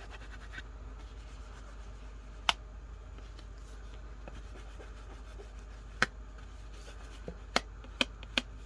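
Soft rubbing of distress ink being worked gently onto the edge of a piece of paper, with a sharp tap a few seconds in, another about six seconds in, and a quick run of three or four taps near the end.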